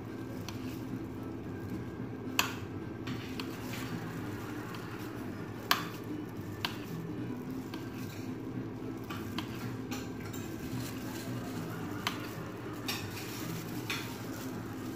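A kitchen knife slicing a block of cheese on a ceramic plate, the blade clicking sharply against the plate about five times, over a steady low background hum.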